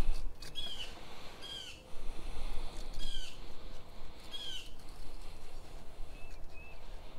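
A bird calling outdoors: short calls that dip slightly in pitch, repeated four times in the first few seconds, then two fainter quick notes near the end.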